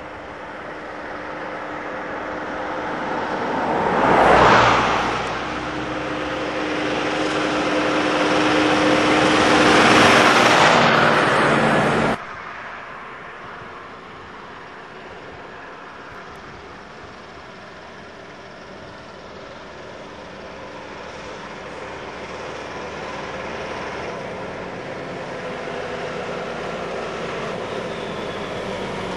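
Traffic passing on a road: one vehicle goes by close and fast about four seconds in, then a second engine builds up and cuts off abruptly about twelve seconds in. After that a Valmet 6400 tractor's diesel engine approaches, growing slowly louder, with a car passing by.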